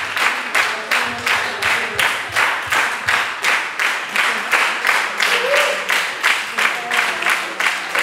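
Crowd clapping in unison, a steady rhythm of about four claps a second.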